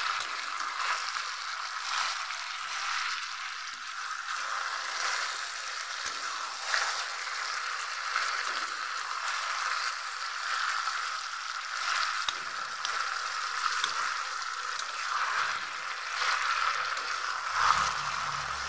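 Chicken and potato curry sizzling steadily in a wok while a metal spatula stirs it, with a few brief scrapes of the spatula against the pan.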